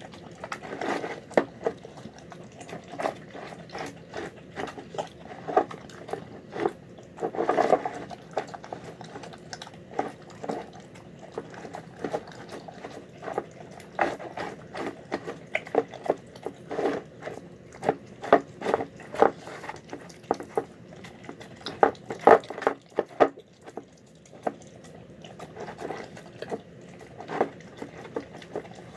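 A dog eating a wet meal of chicken, rice and vegetables, with irregular chewing and smacking sounds and frequent small clicks.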